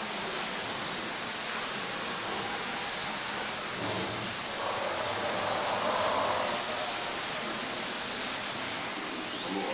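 Steady, even hiss of exhibit-hall background noise, slightly fuller for a couple of seconds in the middle.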